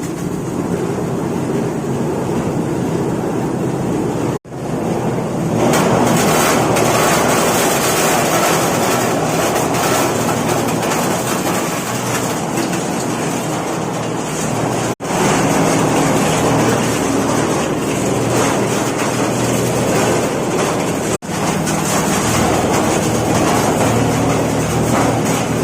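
Compost sieving machine running with a loud, steady mechanical rumble and hum. It cuts out briefly three times and grows louder about six seconds in.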